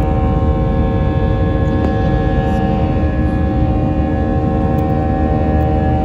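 Jet airliner's turbofan engines heard from inside the cabin at a window seat near the engine during the climb after takeoff: a steady, loud drone with several steady humming tones over it.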